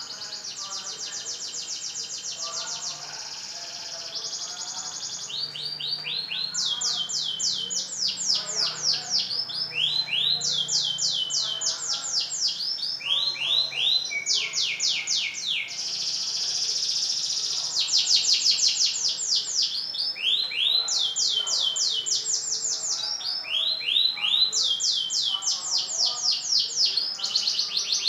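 Kemayoran F1 canary singing continuously in full, vigorous song. The song is a chain of high, fast trills, each phrase a rapid run of the same rising or falling note, switching to a new trill every second or two.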